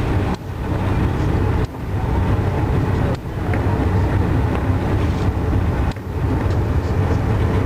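Amtrak Northeast Regional passenger train running at speed, heard from inside the coach: a steady low rumble that dips for an instant four times.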